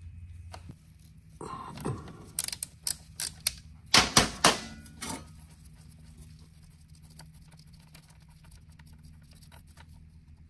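Metallic clicks and clanks of a hand tool and a steel drain pan as a gearbox drain bolt is worked loose and removed to drain the oil. There is a run of sharp clicks, then a few loud clanks about four seconds in, then a low steady hum with faint ticks.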